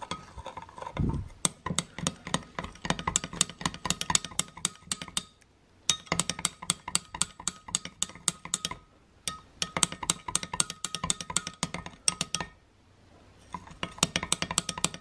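A metal spoon stirring paint in a glass measuring cup, clinking rapidly against the glass in runs of quick taps broken by three short pauses.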